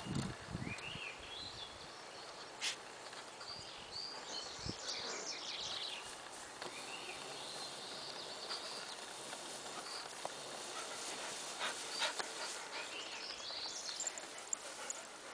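Two dogs panting and rustling about in a trailer-load of cut grass, with a few sharp rustles or clicks. Short high-pitched chirps run through the background.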